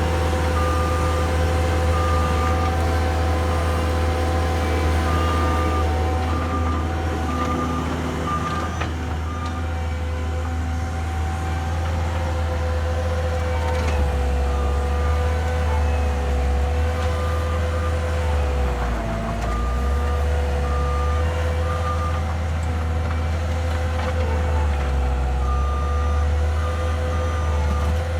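Skid steer loader's diesel engine running steadily under work, its backup alarm sounding in several runs of short, evenly spaced high beeps as the machine reverses. The engine note dips briefly a little past the middle.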